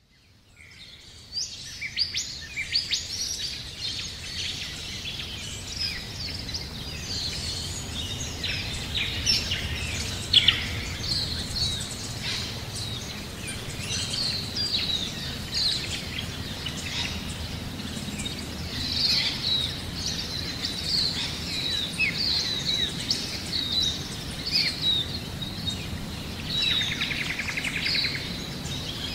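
Birdsong: many small birds chirping and twittering all through, with a low steady rumble beneath. It fades in over the first second or so, and a buzzy trill stands out near the end.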